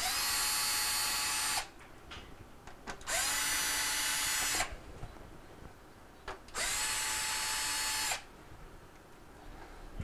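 Cordless drill driver running three times, each for about a second and a half, backing out the quarter-inch hex-head screws that hold the refrigerator's rear cover panel.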